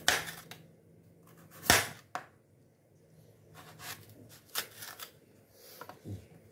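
Kitchen knife slicing rounds off a raw sweet potato held in the hand: a handful of sharp, crisp snaps as the blade cuts through the firm flesh. The loudest comes just under two seconds in.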